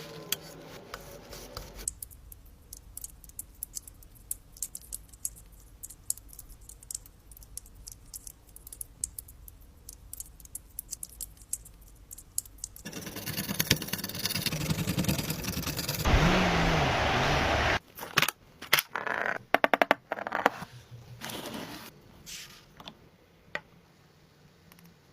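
Small clicks and scraping of hand work on a diecast toy car. About halfway through comes a louder stretch of steady noise with a wavering low hum, lasting a few seconds and ending abruptly; then scattered clicks return.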